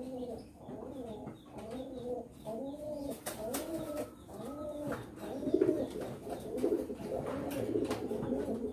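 Domestic pigeons cooing: a steady string of short coos, each rising and falling in pitch, about one to two a second.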